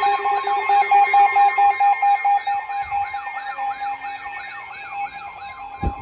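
Several NOAA weather radios sounding their alert alarms at once for a new severe thunderstorm warning. A long steady warning tone plays together with rapid beeping and warbling, siren-like tones that rise and fall about three times a second. A lower beep drops out about two seconds in, and a short thump comes near the end.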